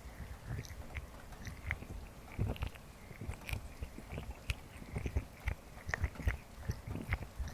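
Sticky slime squished and worked close against the microphone in an ASMR ear massage: irregular wet squelches, little pops and crackles over soft low thumps.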